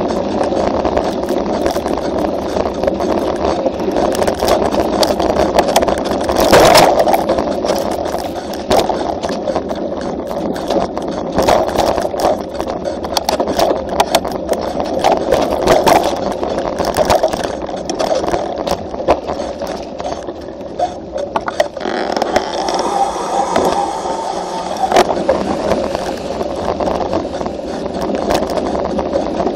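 Mountain bike rolling fast over a dirt road, heard from a camera mounted on the bike: a steady rumble of tyres on dirt and gravel with frequent rattles and knocks from the bike, and a hard jolt about six and a half seconds in.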